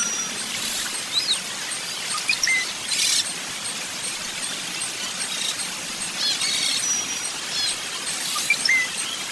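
Small birds chirping: scattered short, high chirps and quick pitch glides, broken by a few buzzy trills. A faint, regular high ticking runs underneath at about three ticks a second.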